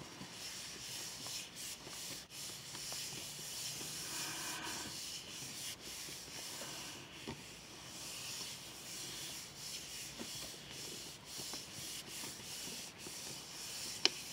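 Hands rubbing and smoothing a sheet of paper pressed onto a painted gel plate to pull a print: a continuous soft papery hiss that swells and fades with the strokes. A short sharp tap comes just before the end.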